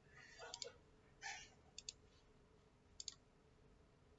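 Faint computer mouse clicks: three quick pairs of clicks, a little over a second apart, with a couple of soft rustles between them.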